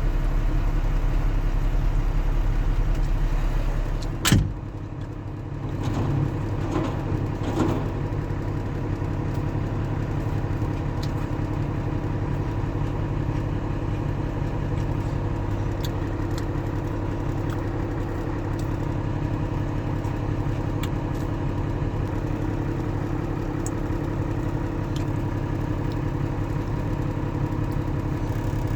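New Holland B90B backhoe loader's diesel engine running steadily. About four seconds in there is a single sharp knock and the engine note dips briefly, then a few wavering pitch sweeps before it settles back to a steady idle.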